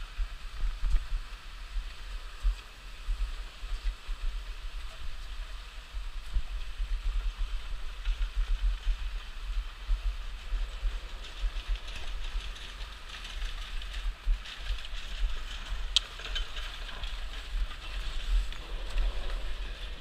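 Skis sliding and scraping over thin, slushy spring snow. The scraping turns grittier and more clattery in the second half, with one sharp click. A low rumble of wind on the microphone runs under it.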